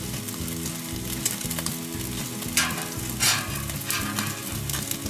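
T-bone steak searing under the glowing gas burner of a Steakburner top-heat grill, the fat sizzling and crackling steadily, with two louder bursts of crackling just past the middle.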